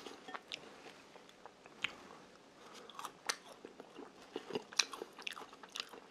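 A person chewing homemade french fries, with scattered small crunches and clicks. The fries are not fully crisp and have gone a little soft, so the crunch is light.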